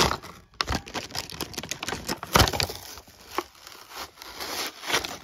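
Clear plastic blister packaging crinkling and crackling as it is pulled and torn open by hand, with a few sharp snaps.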